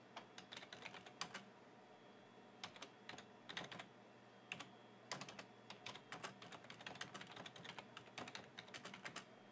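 Computer keyboard being typed on: faint, irregular runs of quick key clicks with short pauses between them, as an email message is typed out.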